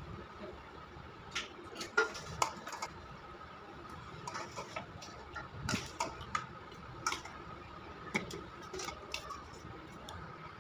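Marinated mutton pieces being dropped by hand into an aluminium pressure cooker, with the metal bowl against the pot: irregular light clicks and knocks, the loudest about two seconds in.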